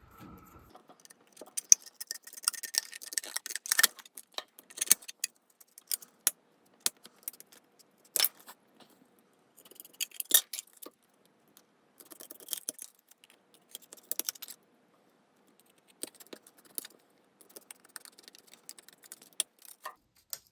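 Lexan scissors cutting a thin clear polycarbonate body-kit visor: sharp snips and crinkling of the plastic sheet in irregular clusters, with short pauses between cuts.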